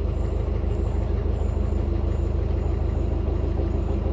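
Narrowboat's diesel engine running steadily at slow cruising revs, a low even beat with a steady hum above it.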